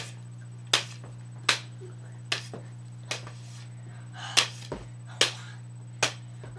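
Plastic toy lightsaber blades clacking against each other in a mock duel: about eight sharp clacks, roughly one every three-quarters of a second, over a steady low hum.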